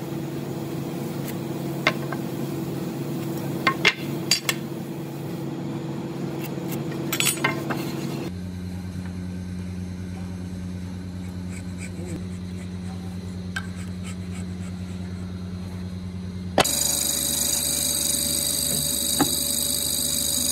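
Steady electric workshop machinery hum with a few light clicks and taps of marking tools on timber. The hum changes abruptly twice. About three-quarters through, a louder machine with a high whine takes over: a hollow-chisel mortising machine's motor running.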